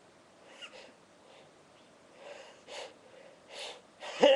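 A person sniffing and taking short breaths as a sneeze builds. Near the end a loud outburst starts that comes out as a sneeze and a cough at once.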